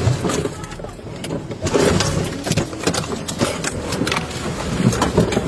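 A car's engine running under load as it rams and shoves against a police SUV, with several sharp metal knocks and bangs, the loudest near the start and about two seconds in.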